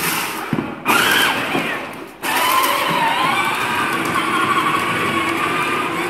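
Electric drive motor and gearbox of a John Deere battery-powered ride-on toy tractor whining as it drives, with a wavering pitch. It cuts out and starts again abruptly twice in the first couple of seconds, then runs steadily.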